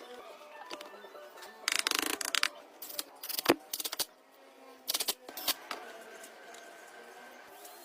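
Workshop handling noises during a motorcycle restoration: a short rasping scrape about two seconds in, then a few sharp clicks and knocks of metal parts or tools.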